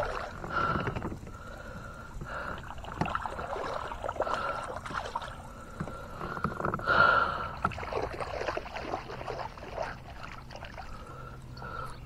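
Water sloshing and splashing around a kayak, with scattered knocks and handling noise; the loudest splash comes about seven seconds in.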